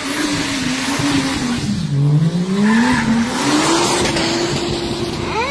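Rear-wheel-drive coupe drifting in circles on asphalt: tyres squealing and skidding under a revving engine. The engine note drops about two seconds in, then climbs and holds higher.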